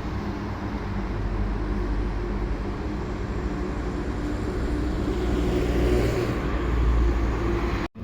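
Whoosh high-speed electric train running on the track: a steady rushing rumble that grows a little louder toward the end.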